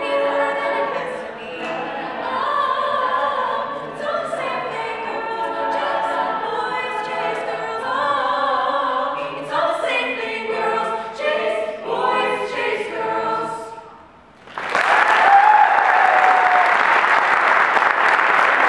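Mixed-voice a cappella group singing the closing bars of a song with a female lead soloist, the song ending about 14 seconds in. Loud audience applause then breaks out, with a voice calling out over it.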